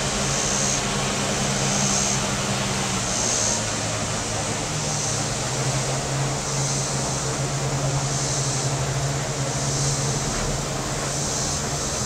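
Cicadas shrilling in a chorus that swells and fades about once a second, over a steady low engine drone that drops lower in pitch about three seconds in.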